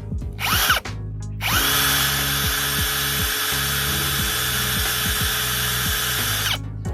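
Ingco brushless cordless impact drill in drill mode at speed 1: a short trigger blip about half a second in, then it spins up, runs steadily for about five seconds and winds down near the end.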